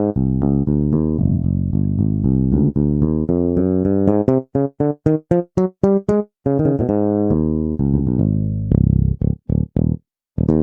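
Sampled electric bass with an amp simulator, played from a Yamaha Montage M synthesizer keyboard. It plays a bass line of short, detached notes, quick runs and a few held notes. It is loud enough that the recording may clip.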